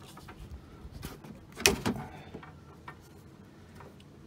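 Rubber washer hoses being worked off the plastic outlets of an old windscreen washer pump: faint rubbing and small clicks, with one sharp knock a little over a second and a half in.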